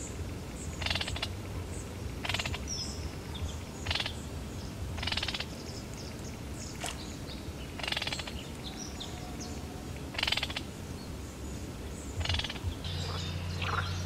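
Short rasping calls from a small animal, repeated every second or two over a steady low hum. Near the end, louder warbling notes begin.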